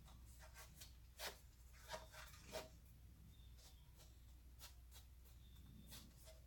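Near silence with a few faint, short rubbing and tapping sounds of hands pressing adhesive tape firmly onto a bracket.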